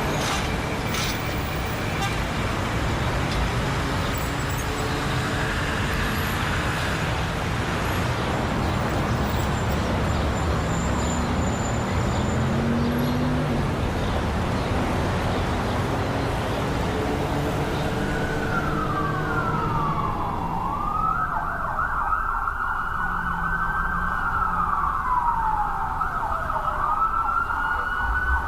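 Steady road traffic noise with engine hum. About two-thirds of the way in, an emergency vehicle siren starts up, wailing in repeated rising and falling sweeps over the traffic.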